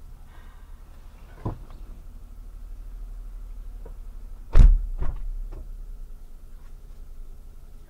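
Dull thumps and knocks picked up inside a stationary car, the loudest about four and a half seconds in, over the low steady rumble of the idling engine.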